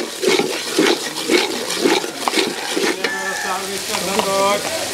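A flat metal spatula scraping and stirring spice paste frying in oil in a large aluminium pot. It makes a scrape about twice a second over a steady sizzle.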